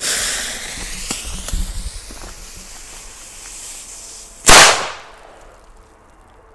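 Homemade match-head-powder banger, its plug pinned with wooden skewers: the fuse hisses with a few crackles, fading over about four seconds, then the banger goes off with one loud bang, about as loud as a D-class banger.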